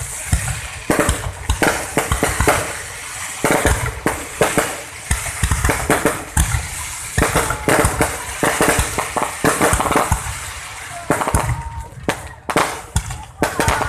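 Fireworks going off close by: a dense run of rapid, irregular bangs and crackles.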